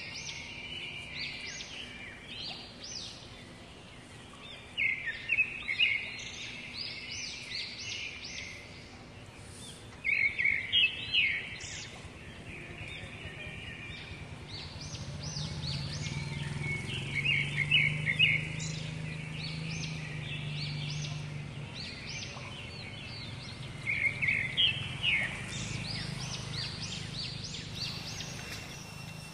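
Birds chirping in repeated bursts of quick, high notes over steady outdoor background noise, with a low hum underneath in the middle stretch.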